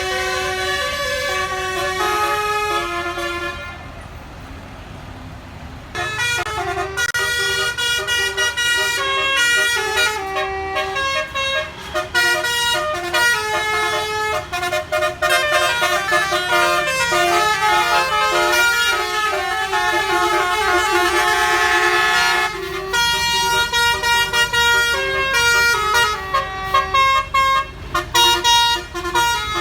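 Bus 'telolet basuri' multi-tone air horn playing a melody of quickly changing notes. It drops away about four seconds in, then comes back louder about six seconds in and keeps playing its tune.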